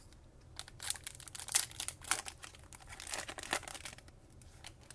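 A pack of trading cards being handled: the wrapper crinkles and tears, and the cards slide and click against each other in a series of short scrapes that fade out about four seconds in.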